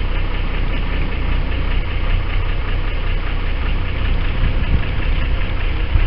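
A fishing charter boat's engine idling steadily, a constant low hum with a noisy wash over it.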